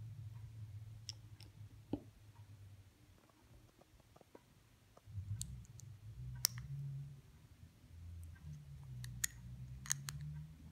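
Plastic LEGO bricks clicking as they are handled and snapped together by hand: scattered, irregular sharp clicks, a few louder ones in the second half, over a low rumble.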